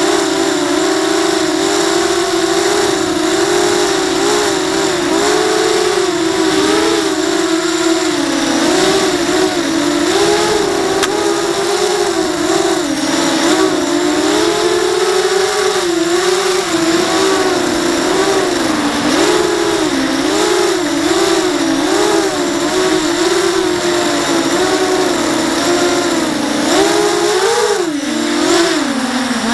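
ZMR250 racing quadcopter's four DYS BE1806 2300KV brushless motors spinning KingKong 5040 bullnose props, heard from the onboard camera. It is a steady buzzing whine whose pitch keeps wavering up and down with the throttle, with a sharper rise and drop near the end.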